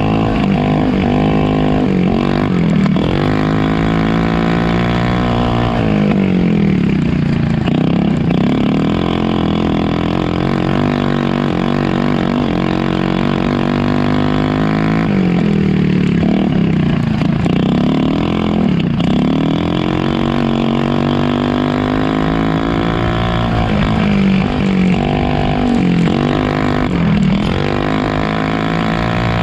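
Polaris RZR 170 youth side-by-side's single-cylinder four-stroke engine running under throttle, heard on board. Its revs fall and climb again several times as the throttle comes off and back on.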